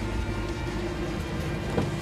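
Background music playing steadily, with one short light knock near the end.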